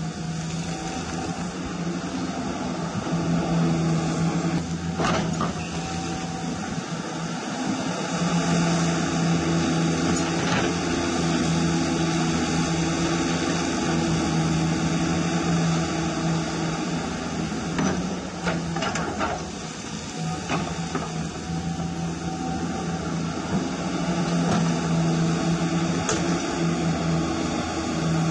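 Radio-controlled scale model CAT 336 hydraulic excavator working: its electric pump runs with a steady drone that swells and eases as the arm digs and lifts. A few scrapes and knocks of the bucket in dirt and stones.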